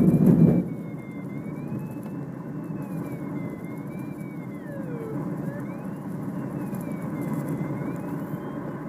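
Duo Discus glider on aerotow. The rumble of its wheel rolling over the grass strip stops about half a second in as it lifts off. What remains is a steady rush of airflow and tow-plane engine noise, with the audio variometer's thin tone sliding up and down.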